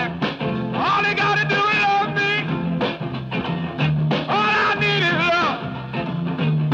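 1960s rhythm-and-blues rock band playing a mostly instrumental passage: a wavering, bending lead line over a repeating bass figure.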